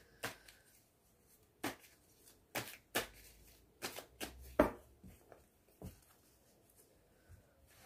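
A deck of cards being shuffled overhand by hand, giving irregular sharp slaps and taps of the cards. The loudest slap comes a little over halfway through, and the taps stop about six seconds in.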